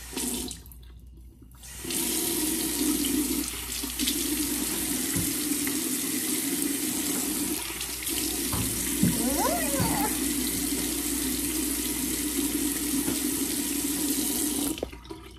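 Bathroom sink faucet running steadily into the basin, used for wetting the face before washing. It is turned on about two seconds in and shut off shortly before the end.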